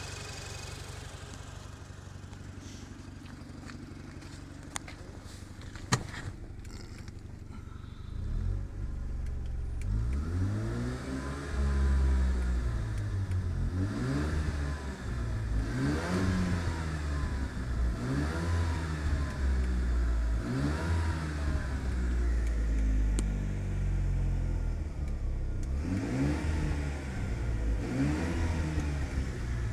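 Mazda RX-7 rotary engine idling steadily, with two sharp knocks about five and six seconds in. From about eight seconds in it is blipped again and again, roughly every two seconds, each rev rising and falling in pitch, up to around 3,000 rpm.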